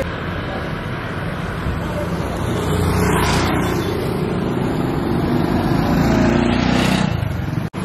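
Road traffic passing on a street. One vehicle goes by close about three seconds in, and another draws near and passes just before the end, where the sound breaks off abruptly.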